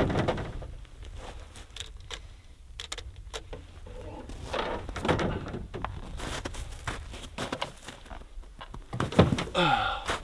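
A Ford pickup's tailgate dropping open with a heavy clunk at the start, then scattered knocks, clicks and rustling as a pack and rifle gear are set into the metal truck bed. A short sound falling in pitch comes near the end.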